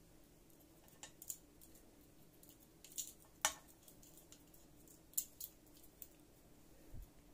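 Kitchen tongs clicking and tapping as shrimp are picked out of a pot of rice and set on a plate: a few faint, sharp clicks, scattered and irregular.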